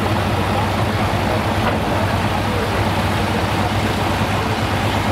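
Heavy diesel engine of a hot farm pulling tractor, an International, idling with a steady low drone after its pull.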